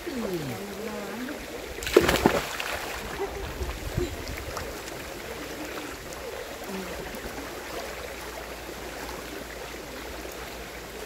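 A child jumps feet-first into a shallow river pool with one loud splash about two seconds in, over the steady rush of the flowing stream.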